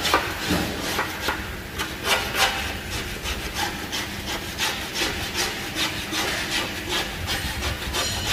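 Repeated rasping, scraping strokes, about two or three a second and somewhat irregular, like a hand tool worked back and forth on a surface.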